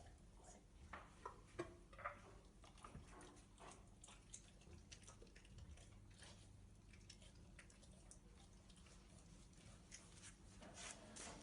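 Near silence, with faint mouth clicks and smacks from a Vizsla dog, sharpest about one and a half and two seconds in, then sparser and fainter.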